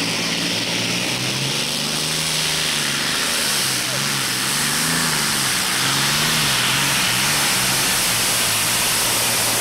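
Modified pulling tractor with 54.9 litres of engine displacement running flat out as it drags the weight-transfer sled down the track: a loud, continuous engine roar whose pitch wavers up and down.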